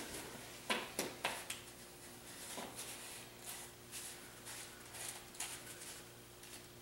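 Light plastic clicks, taps and rustling as plastic powder bottles and a plastic tub are handled and orange powder coat is tipped into a tub of BBs; the sharpest taps come in the first three seconds, then only soft rustling.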